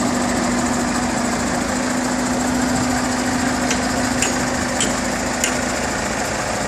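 Heavy diesel engine idling steadily, with a steady hum in it that fades out a little before the end. About midway, four sharp metallic clinks sound roughly half a second apart over the engine.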